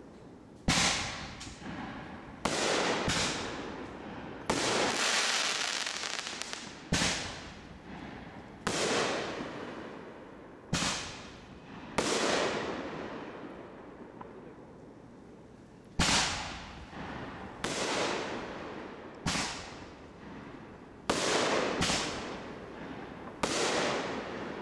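Consumer aerial fireworks bursting overhead: about fifteen sharp bangs at uneven intervals, some in quick pairs, each fading away over a second or two. There is a lull of a few seconds near the middle.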